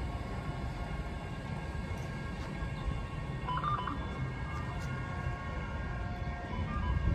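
Steady low rumble of background noise at an empty railway platform, with faint steady tones above it and a brief faint beep about three and a half seconds in.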